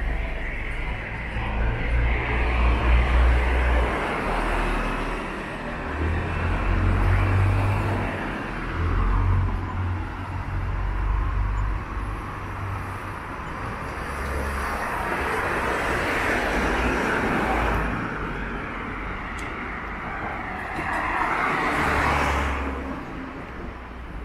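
Road traffic: several cars passing one after another, the tyre and engine noise swelling and fading each time over a deep rumble.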